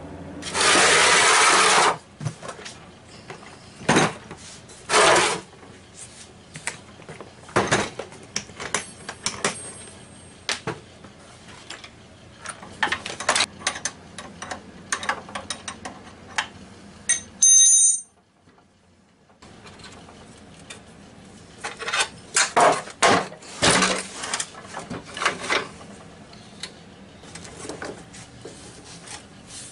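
Workshop handling noises: scattered clicks, knocks and clatter of metal parts as a router is fitted into a bench-top router table, with a loud scrape lasting about a second and a half near the start. There is a brief gap of silence just past halfway, then more clattering.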